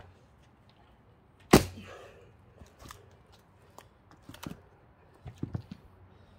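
One hard strike into a thick pine log while splitting firewood, about one and a half seconds in, followed by several lighter knocks and clatters of wood and tools.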